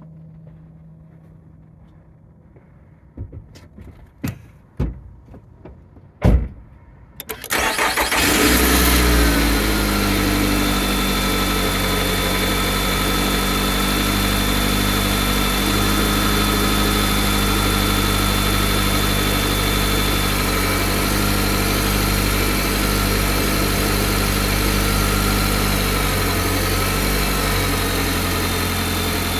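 A few clicks, then a car engine started from cold catches about seven seconds in and settles into a steady idle. A thin high whine runs over it for about ten seconds and comes back near the end; the owner finds the engine makes an odd noise when cold.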